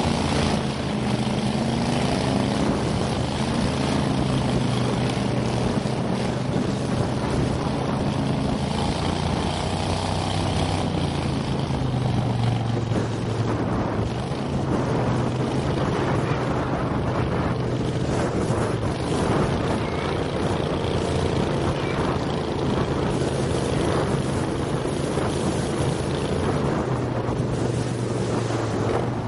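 Mud motor on a jon boat running steadily at speed, a constant engine drone that shifts only slightly in pitch, over a rush of wind and water.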